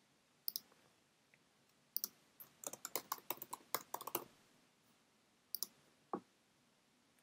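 Faint computer keyboard typing: a quick run of keystrokes from about two seconds in, lasting about two seconds. Single clicks come shortly before it and twice more near the end.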